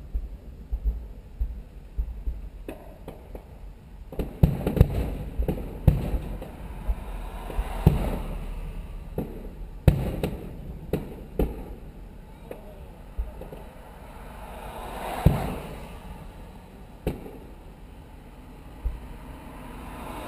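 Distant fireworks show: about ten sharp bangs from bursting shells at irregular intervals, some in quick pairs, over a low rumble.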